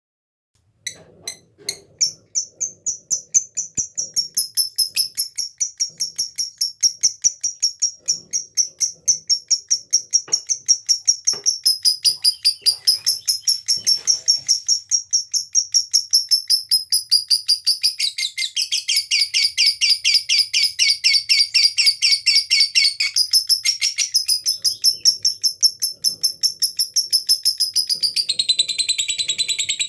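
Lovebird ngekek: the long chattering call, a continuous run of sharp, high-pitched chirps at several a second. It opens with a few spaced chirps, and the pitch shifts about two-thirds of the way through and again near the end.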